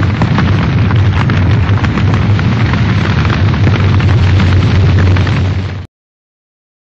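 Fire sound effect for an animated flaming logo: a loud, steady roar of flames with dense crackling over a deep rumble, cutting off suddenly near the end.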